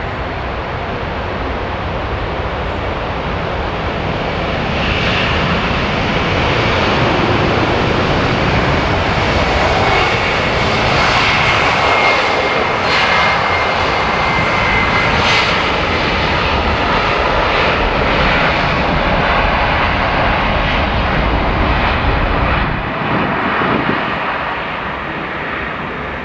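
Boeing 767 twin-engine jet at take-off power, its engine noise building to its loudest about halfway through with a thin whine on top, then easing off near the end as the airliner passes and climbs away.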